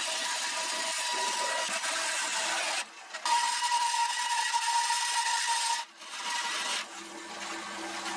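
Band saw cutting a curved line through a wooden board, a steady rasping whine. The sound breaks off briefly about three seconds in and again just before six seconds, and is quieter for the last second or so.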